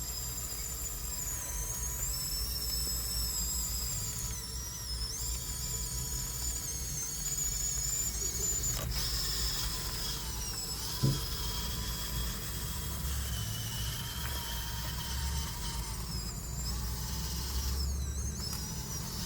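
Huina 1554 RC bulldozer's electric motors and gearboxes whining as it drives and pushes sand, the high pitch rising and falling with the throttle over a low rumble. A single sharp knock about eleven seconds in.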